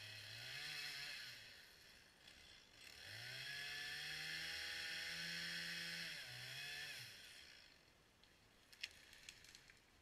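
Stihl chainsaw running at high revs, cutting through a fallen tree, easing off briefly about two seconds in and then held at full throttle for about three seconds. It gets a short rev near seven seconds, then the throttle is released. A few sharp cracks follow near the end.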